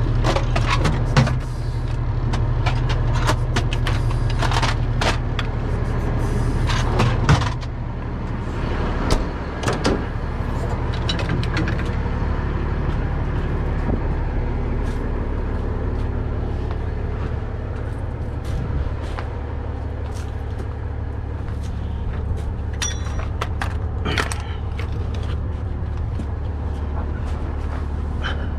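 Heavy truck engine idling steadily, with metal tools and sockets clinking and clanking in a toolbox drawer through the first several seconds and a few more knocks later.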